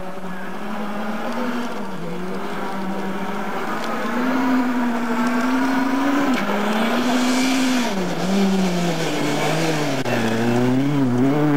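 Opel Astra rally car's engine at full throttle, getting louder as the car comes closer. Its note climbs and drops back several times as it changes up through the gears. About ten seconds in the note falls and wavers as the car slows for a corner, then it climbs again.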